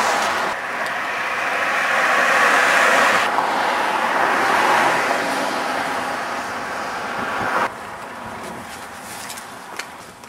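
Road traffic: motor vehicles passing close by, a loud rushing noise that swells twice and cuts off abruptly about eight seconds in, leaving a quieter outdoor background with a few clicks.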